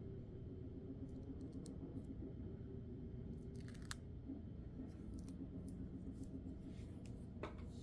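Dried homemade peel-off film being pulled off skin, giving a few faint, brief sticky crackles about a second in, near the middle and near the end, over a steady low hum.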